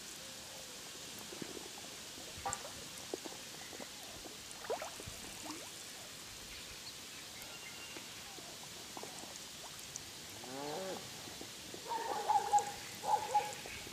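Animal calls: a short run of pitched calls near the end, followed by a few louder calls, over a faint outdoor background with scattered soft clicks.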